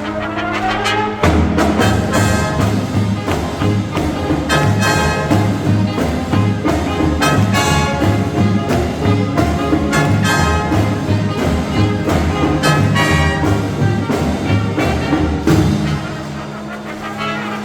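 Marching band playing brass with drums keeping a steady beat. Near the end the drums drop out, the band gets quieter and the brass holds long chords.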